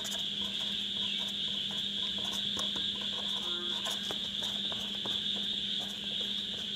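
Felt-tip marker scratching on paper in short strokes as words are written, over a steady high-pitched hiss or chirring and a faint low hum.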